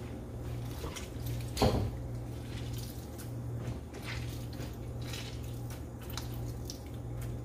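A lemon squeezed by hand over raw chicken pieces in a plastic bowl: faint squelches and juice dripping onto the meat, with one sharp knock about a second and a half in, over a steady low hum.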